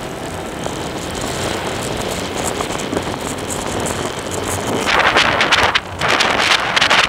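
Road and traffic noise heard while moving along a road, with wind on the microphone. About five seconds in the wind buffeting turns loud and gusty.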